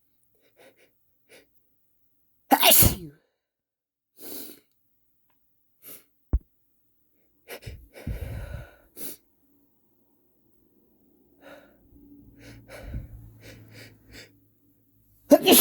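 A man sneezing loudly, once about two and a half seconds in and again at the very end, with quieter breathy build-up sounds between.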